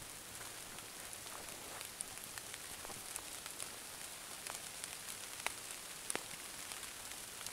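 Light rain falling on foliage: a faint, steady hiss with scattered ticks of single drops.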